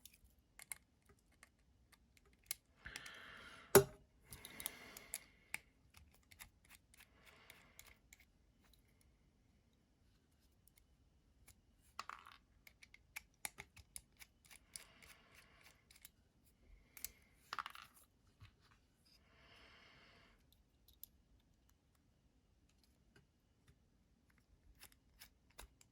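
Scattered small clicks, taps and brief scratchy rustles from handling a folding pocket knife and its small parts during tinkering, with one sharp click about four seconds in.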